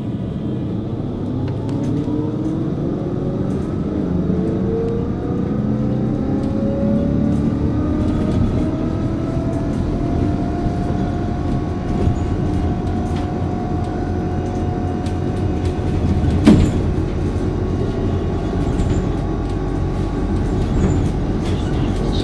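Hess Swisstrolley 3 trolleybus under way: its electric drive whines, rising in pitch as it speeds up over the first ten seconds, then holds steady over the rumble of the running bus. A sharp click about sixteen seconds in.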